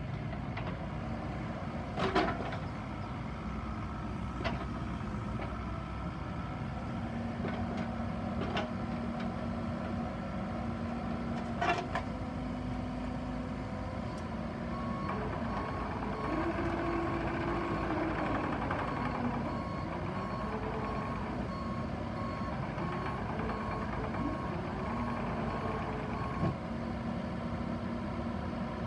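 Bobcat E50 mini excavator's diesel engine running under hydraulic load, with a few sharp metal clanks in the first twelve seconds. From about halfway in, a travel alarm beeps steadily at an even pace until near the end.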